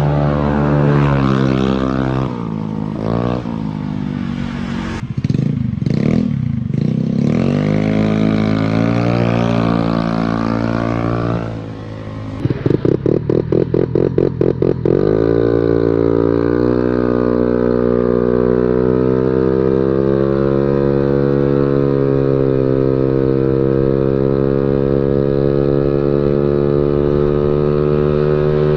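Honda Beat automatic scooter's stock engine breathing through an aftermarket racing exhaust: the exhaust note rising and falling with the throttle, then a run of sharp pulses about halfway in, then a steady note that climbs slowly as the scooter accelerates and cruises.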